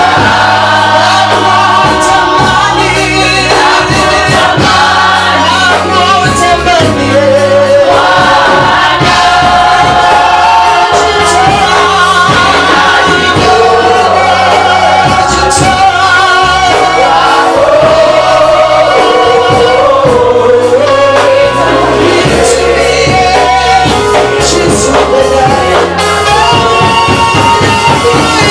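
Gospel worship music: a choir singing over a band, with a steady bass line and drums.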